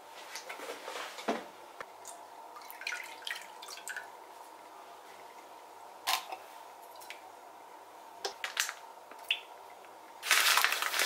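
Kitchen handling sounds over a faint steady hum: scattered light clinks and knocks, then a louder rush of about a second near the end as sugar and potato starch are tipped into milk in a frying pan.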